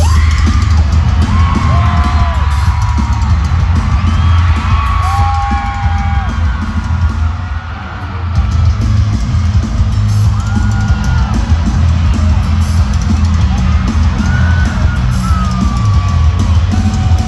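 Loud live rock music from a band, with heavy bass and drums and guitar, and voices yelling and whooping over it; the level dips briefly about eight seconds in.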